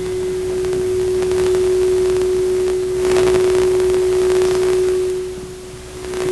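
PA system feedback: a loud, steady single-pitch tone from the microphone and speakers that swells in, dips briefly near the end and comes back. It is a sign of the sound-system trouble the preacher calls buzzing.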